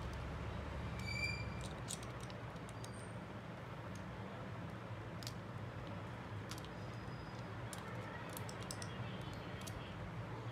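Scattered small clicks and taps, typical of tools and parts being handled during a smartphone teardown, over a steady low hum. A brief high chirp sounds about a second in.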